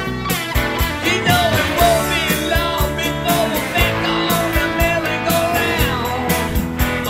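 Rock song with a singing voice over a steady drum beat.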